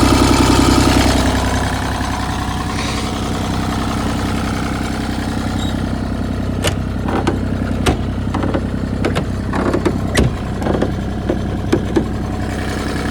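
The Kubota diesel engine of a Bobcat E35i mini excavator idles steadily, a little louder for the first second or so. From about halfway through, a scatter of sharp metallic clicks and knocks sounds over it.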